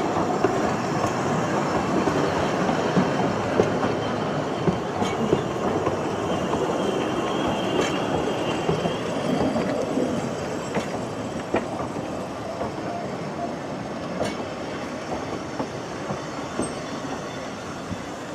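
Narrow-gauge Ffestiniog Railway passenger carriages rolling slowly past, their wheels rumbling and clicking over the rail joints. A faint wheel squeal comes a little before halfway, and the sound slowly fades as the train moves on.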